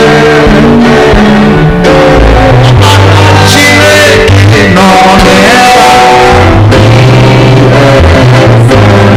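Loud worship music from a church band: bass notes moving beneath sustained chords and drum hits, with voices singing along.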